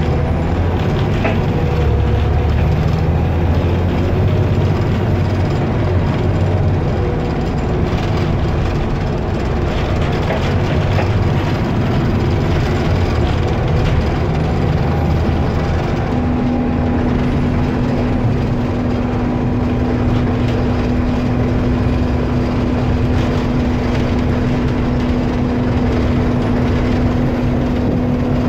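Engine roar of a rear-engined Alexander ALX400 double-decker bus, heard from the back seats of the lower deck while it drives along: a loud, steady low rumble, with a steady whine joining about halfway through and holding on.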